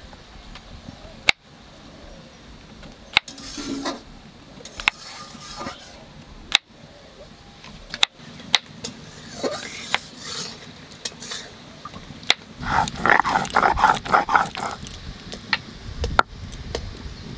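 Kitchen knife slicing button mushrooms on a wooden cutting board, the blade knocking sharply on the board every second or two. Around the middle, a rapid run of animal calls lasts about two seconds and is the loudest sound; a dull thud comes near the end.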